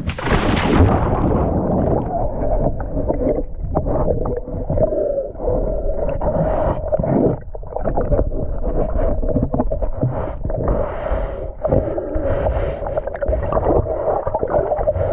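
A splash as a swimmer goes into the water, then muffled underwater sound: gurgling and bubbling with a steady wavering hum and many short scraping strokes, as growth is brushed off a sailboat's hull below the waterline.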